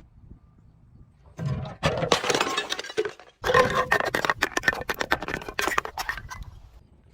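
Glass bottles being crushed and breaking: dense crunching and crackling with clinking shards. It starts about a second and a half in, stops briefly near the middle, then goes on.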